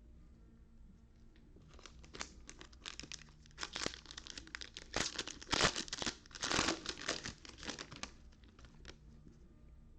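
Plastic trading-card pack wrappers being torn open and crinkled by hand. The crackling rustle starts about two seconds in, is loudest in the middle and tapers off near the end.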